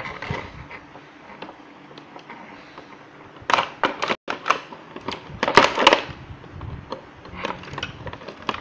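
Clear plastic blister packaging crackling and crinkling in bursts as hands dig a toy's tail piece out of the tray.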